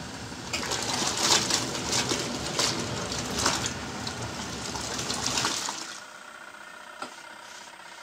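Wash tub of a Kuppet twin-tub portable washing machine agitating, sloshing soapy water and towels around; about six seconds in the churning stops and it goes much quieter.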